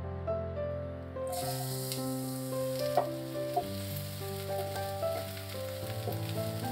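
Sliced red onion frying in hot oil in a frying pan: a steady sizzle starts about a second in. A wooden spatula stirs the onion and knocks sharply on the pan twice midway. Soft background music plays underneath.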